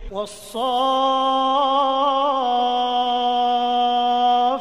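Male Qur'an reciter's voice chanting: it starts abruptly, then holds one long melodic note for about four seconds, with a wavering ornament in the middle before it settles slightly lower.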